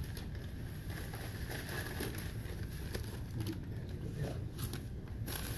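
Faint rustling and light handling noises over a low steady room hum.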